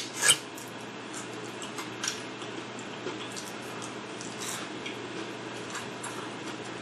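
A person eating, with faint wet chewing and mouth clicks scattered through and one louder mouth sound just after the start, over a steady low room hum.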